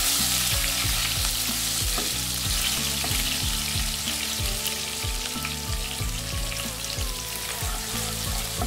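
Chopped onion and green-onion whites sizzling in hot oil in a nonstick wok, stirred with a wooden spatula, over a steady low beat about twice a second.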